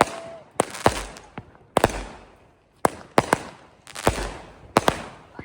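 Fireworks going off: about a dozen sharp bangs at irregular intervals, each trailing off in a short echo, with a brief steady whistle right at the start.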